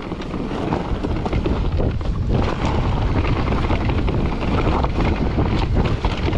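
Wind rushing over the camera microphone and mountain-bike tyres rolling over a rough dirt trail, with many short rattles and knocks from the bike as it rides over bumps on the descent.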